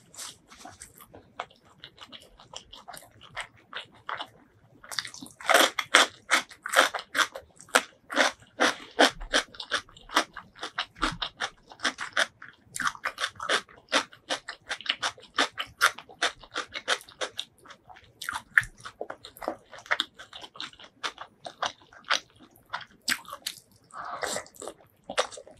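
Close-up eating sounds of spicy duck curry and rice eaten by hand: chewing with crisp crunching clicks as pieces of duck are bitten. Sparse at first, then busy from about five seconds in.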